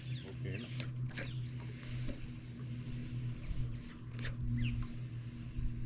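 Baitcaster fishing reel being wound in on a slow retrieve, with scattered clicks and scrapes over a steady low hum.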